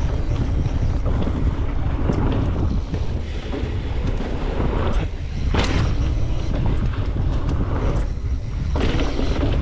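Wind buffeting the microphone of a mountain bike riding fast downhill, with the tyres rolling over a dirt trail and across a wooden boardwalk.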